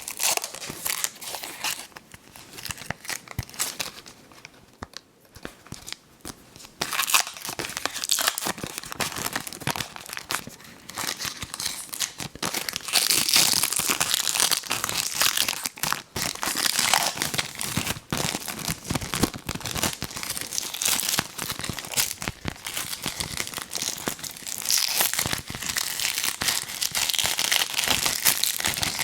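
Fruit Roll-Ups packaging crinkling and tearing, handled close to the microphone; sparse crackles at first, then dense and louder from about seven seconds in.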